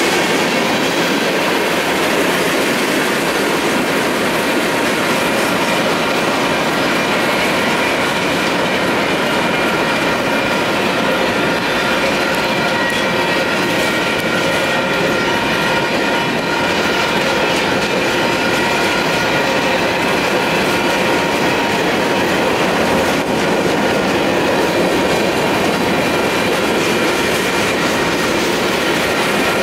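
Freight cars of a Union Pacific manifest train roll steadily through a grade crossing, their wheels clicking and rattling over the rails. Over this the crossing's signal bells ring without pause: a Western-Cullen-Hayes Type 1 electronic bell and a slightly scratchy Type 3 bell.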